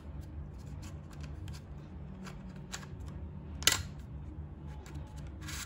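Small plastic clicks and scrapes as the white bounce card built into a Godox V860II-S flash head is slid out and pushed back in, with one sharper click about three and a half seconds in. A steady low hum runs underneath.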